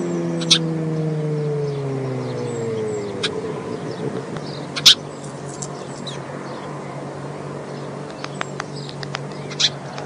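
Road traffic: a passing vehicle's engine, its pitch falling steadily over the first three seconds, then a steady low traffic hum. A few short, sharp high-pitched sounds stand out above the hum, loudest about five seconds in and again near the end.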